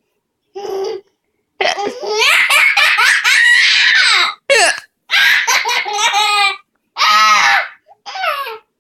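High-pitched laughter in repeated fits, set off by hiccups, with a short separate sound about half a second in before the laughing starts in earnest at about one and a half seconds.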